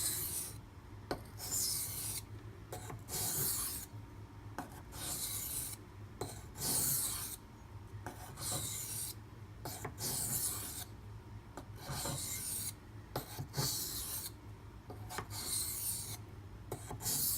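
Knife blade stroked across a coarse Beston 500-grit water stone in alternating light strokes, a gritty scrape about once a second, to remove the burr.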